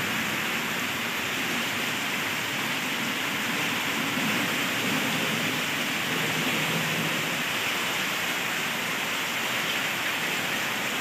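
Heavy rain pouring steadily onto a flooded paved yard, drops splashing into the standing water.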